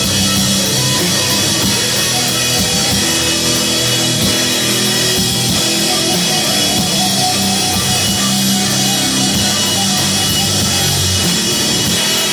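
Live heavy rock band playing loud: sustained distorted guitar and bass notes over a drum kit, with no pause.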